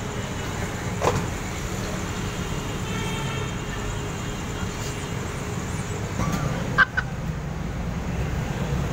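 Steady low rumble of busy urban background noise, like traffic, with a click about a second in and a brief sharp sound with a short tone near seven seconds.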